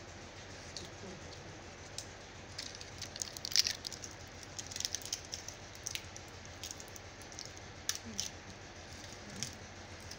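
Scattered light clicks and taps, busiest about three to five seconds in, over a steady room hiss.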